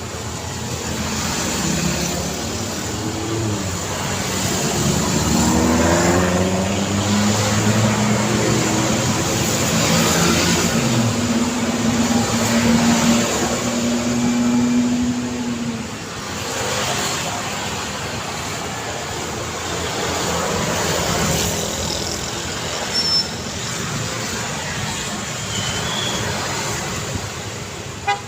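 Busy road traffic, with motor vehicles passing one after another. A vehicle engine is loudest through the middle, its pitch shifting and then holding steady before it passes. There are a couple of short high squeaks near the end.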